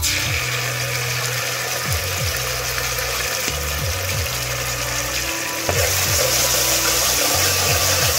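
Dark sauce poured into hot oil and browned minced aromatics in a metal pan, hissing and sizzling loudly as a ladle stirs it. The sizzle grows louder about six seconds in.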